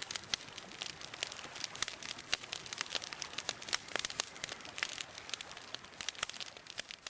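Wood campfire crackling: irregular sharp pops and snaps over a soft hiss, growing quieter near the end.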